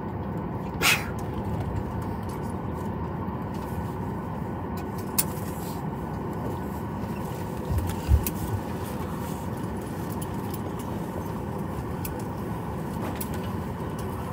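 Steady hum inside a Boeing 737 MAX 9 cabin parked at the gate. A brief click comes about a second in, and a few low thumps come about eight seconds in.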